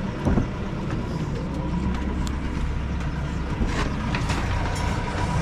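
An engine running steadily with a low hum, with a few short sharp knocks over it.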